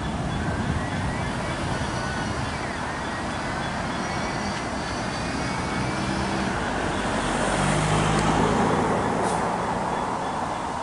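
GBRf Class 66 diesel-electric locomotive with its two-stroke V12 engine running, mixed with road traffic noise. The engine's low note grows louder toward a peak about eight seconds in.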